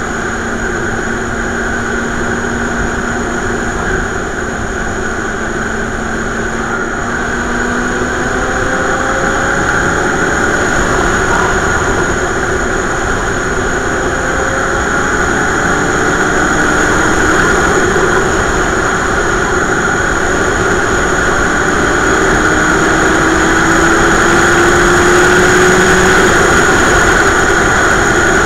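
Motorcycle riding at road speed: steady wind rush over the bike-mounted camera's microphone with the engine's drone underneath, its pitch slowly climbing at times. The whole sound grows gradually louder.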